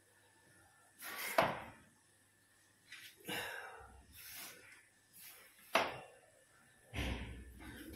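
Newspaper rustling in a handful of short, irregular bursts, with a couple of light knocks, as a clothes iron is pressed and shifted through the paper against the bottom edge of a laminated cabinet to re-stick loose PVC edge banding.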